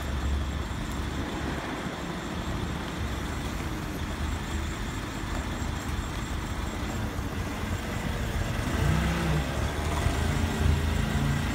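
Nissan forklift's engine running steadily as the forklift manoeuvres, growing louder about eight seconds in.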